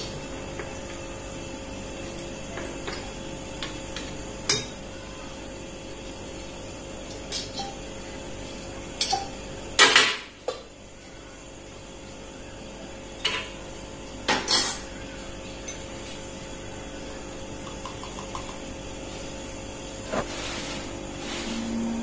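Steel utensils clinking against a stainless steel mixer-grinder jar and a steel plate as spices and curry leaves are put in. Scattered sharp clinks, the loudest about ten seconds in and again near fifteen seconds.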